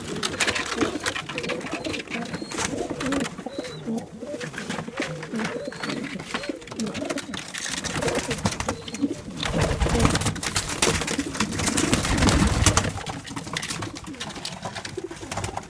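Several pigeons cooing, overlapping low calls, with frequent short clicks and knocks among them.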